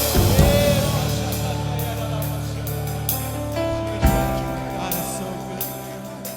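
Live worship band music: held keyboard and bass chords with drum-kit cymbal strikes, and a singing voice briefly near the start, slowly getting quieter.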